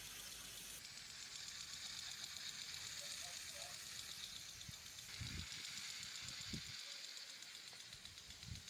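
Faint steady high hiss with a few soft low thumps about five, six and a half and eight and a half seconds in.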